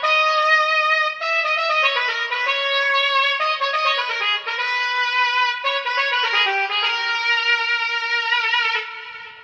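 Casio CT-X9000IN keyboard's trumpet tone playing a slow melody of held notes. The last note wavers in pitch and fades out about nine seconds in.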